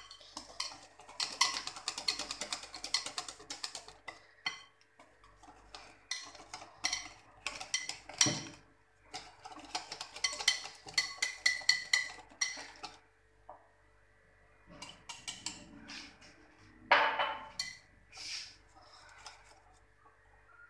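Wire whisk beating thick cake batter in a glass bowl as flour is worked in: rapid scraping and clinking strokes in runs of a few seconds, with short pauses between runs and one louder bump late on.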